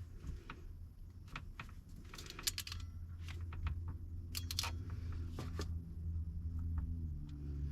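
Hand crimping tool clicking in short clusters as wire ferrules are crimped onto charge-controller wires, over a steady low hum.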